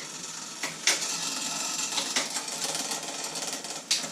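Chain of a triple-chainring, 7-speed bicycle whirring through the drivetrain as the cranks are turned, with a few sharp clicks as the front derailleur is shifted across the chainrings. The front derailleur is shifting into each gear.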